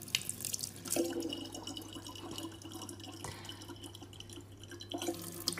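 Thin stream of water from a kitchen tap trickling quietly into a large plastic water jug, with small splashes and drips at the jug's neck.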